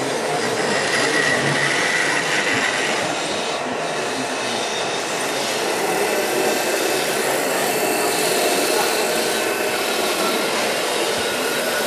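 Steady mechanical running noise of radio-controlled scale model trucks driving, with a faint high whine from about one to three seconds in.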